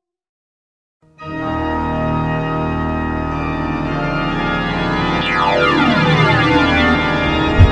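After about a second of silence, a loud, sustained organ-like chord starts and holds, with a sweeping shimmer that moves up and down through its upper tones.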